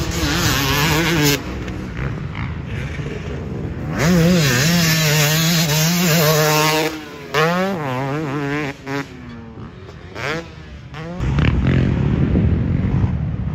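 2022 Yamaha YZ250 two-stroke motocross bike on the throttle, its engine pitch rising and falling as it revs hard and backs off repeatedly. It is loudest as it passes close from about four to seven seconds in, then falls in pitch and fades as it rides away.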